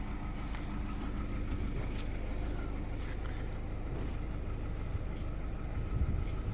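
VW Golf Mk6 engine idling steadily, with a few faint clicks over it.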